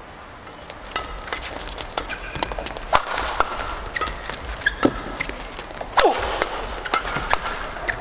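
Badminton doubles rally: rackets strike the shuttlecock sharply about once a second, starting about a second in with the serve, with short shoe squeaks on the court floor between shots.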